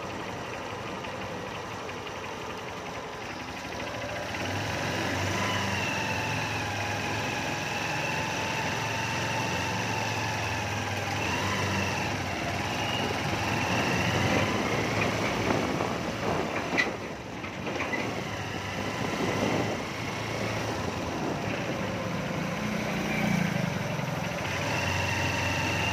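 Small motorcycle's engine running while it is ridden along a street, getting louder about four seconds in. Another motorcycle passes near the end.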